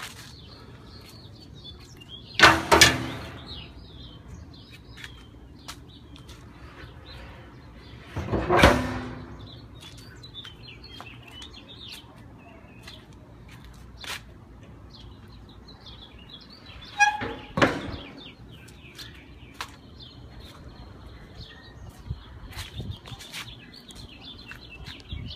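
Small birds chirping steadily, broken by a few loud clanks with a short ringing tail: two about two and a half seconds in, one around eight and a half seconds, and two more around seventeen seconds.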